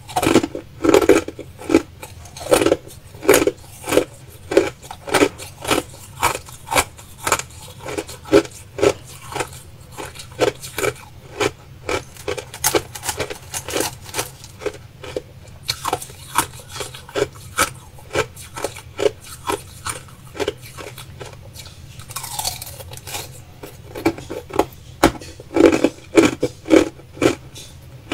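Crushed ice being bitten and chewed, a rapid, steady run of crisp crunches, about two to three a second.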